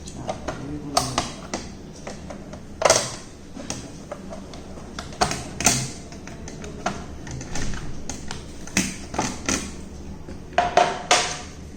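Irregular clicks, taps and knocks from hands working on a DVR's casing and hard drive during a hard-disk swap. There is a low steady hum underneath, and the loudest knocks come about 3 seconds in and near the end.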